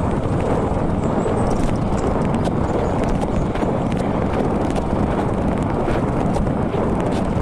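Steady rush of wind on the microphone of a camera riding along on a mountain bike, with many small clicks and rattles.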